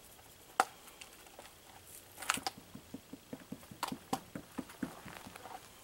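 Hand-twisted seasoning grinder grinding spice: one sharp click, a short scratchy burst, then a quick run of small clicks in the second half.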